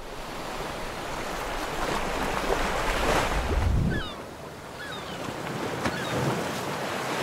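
Ocean surf washing in with wind, swelling and easing, with a few short high chirps in the second half.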